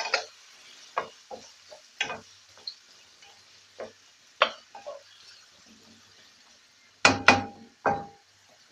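Wooden spatula scraping and knocking against a non-stick wok as chopped tomatoes and olives are stirred, with a faint sizzle of frying between strokes. A few louder knocks come near the end, one with a brief ring of the pan.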